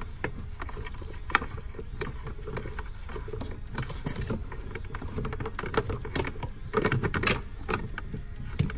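Irregular small clicks and rustles of a cable being fed by hand through a gap in a car's plastic dashboard trim, rubbing against the plastic and the footwell carpet.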